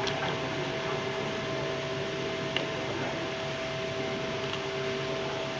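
A small motor running with a steady hum, with a faint click about two and a half seconds in.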